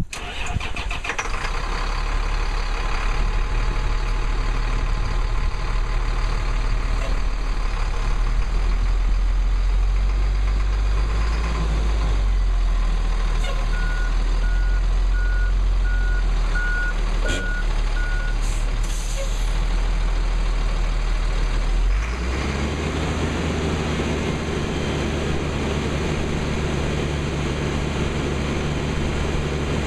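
Ottawa 30 yard truck's Cat 3126 7.2-litre inline-six diesel catching at the start and then running steadily at idle. Near the middle a reversing beeper sounds about six times, with a couple of short air hisses. About two-thirds of the way through, the engine note steps up to a faster speed.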